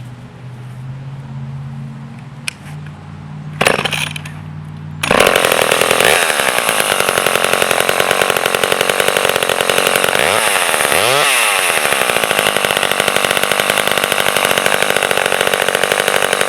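Vintage Sears Craftsman 2.1 (Poulan 25DA) two-stroke chainsaw being started. After a short burst of pull-cord noise, the engine catches suddenly about five seconds in and runs loud with a fast even pulse. Its pitch swings briefly around ten to eleven seconds, then it settles back to a steady run.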